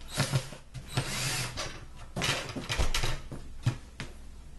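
Cordless drill driving screws into the bottom of a wooden dresser drawer in three short bursts, followed by a sharp knock as the drawer is handled.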